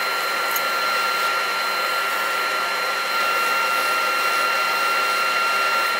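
Wood lathe spinning a 400-grit sanding disc on a pad in a drill chuck, held against the inside of a wooden bowl to sand it: a steady hiss with a steady whine, mixed with the steady rush of a dust extractor.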